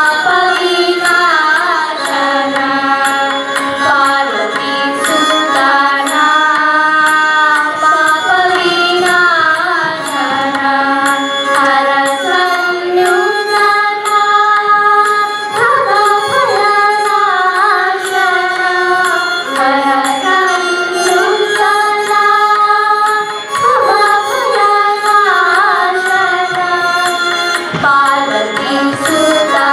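Girls' voices singing a Carnatic devotional song in unison, the melody sliding and bending between held notes, over a light regular percussion beat.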